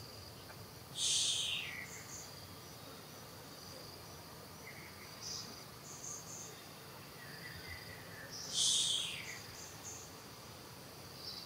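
Insects droning steadily in a high, even tone, broken by two loud, short, high-pitched calls that fall in pitch: one about a second in, the other near the end.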